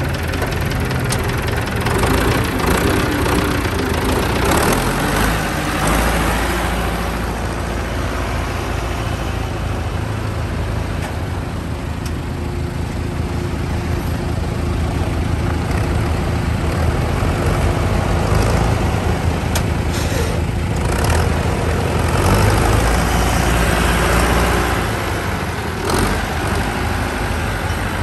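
Ford diesel tractor engine running as the tractor is driven, its note swelling and easing with the throttle a couple of times.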